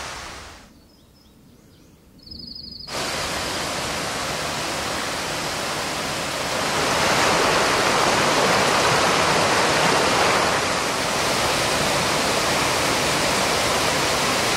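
Mountain stream rushing over rocks in small cascades and a low waterfall: a steady, even rush. After a short quieter gap it comes in abruptly about three seconds in, and it grows louder about six seconds in.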